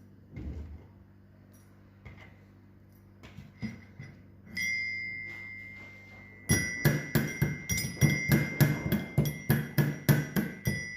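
Metal mortar and pestle (mehraz) pounding whole cloves into powder. A few light knocks and one ringing clank come first. From about six and a half seconds in there is steady pounding at about three strikes a second, each strike ringing with the same metallic note.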